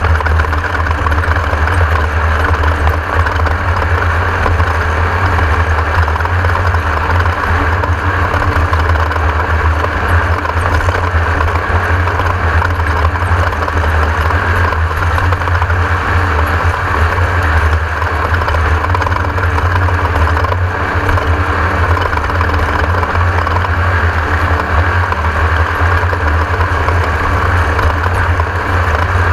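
Class 1600 off-road race buggy with its air-cooled VW engine running continuously under way, a loud, steady deep drone with a hiss of road and wind noise over it.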